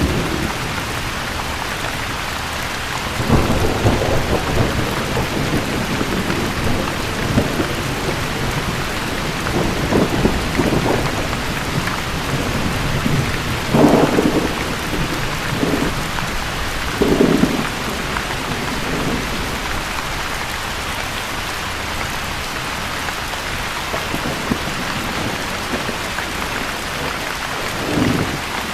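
Steady rain falling, an even hiss throughout. Several brief low thuds or rumbles break through it about five times, the strongest about halfway through.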